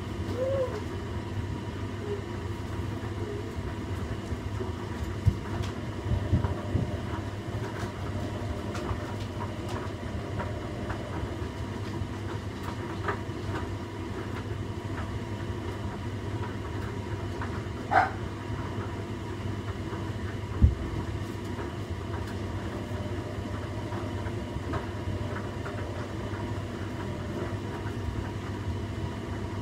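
Washing machine running with a bed tumbling in the drum: a steady low rumble with scattered clicks and knocks, and two louder thumps in the second half.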